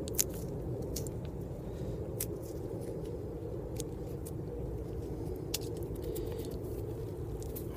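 A roasted sweet chestnut being peeled by hand: scattered small cracks and clicks as the shell and skin come away, over a steady low rumble.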